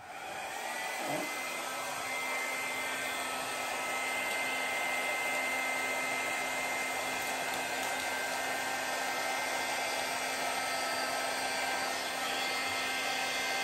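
Handheld hair dryer switched on at its low setting and run steadily, blowing air; its motor whine rises for the first second or two as it spins up, then holds steady.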